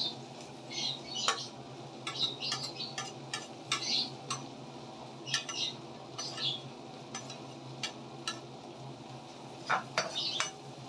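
Spatula scraping and knocking against a non-stick wok while stirring ginger and garlic in melted butter: irregular short scrapes and sharp clicks, over a steady low hum.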